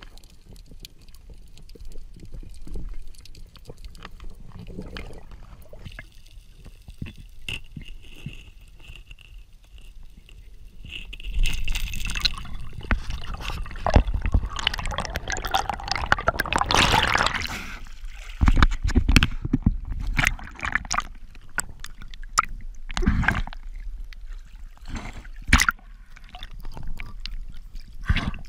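Muffled underwater sound picked up through a diving camera's housing: water sloshing and gurgling, with scattered knocks and thumps. There is a louder rushing stretch partway through.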